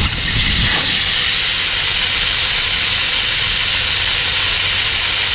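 Air rushing out of a travel trailer tire through its opened valve stem in a loud, steady hiss: the tire is being deflated so a tire plug can be pushed further into the puncture. The hiss stops abruptly near the end.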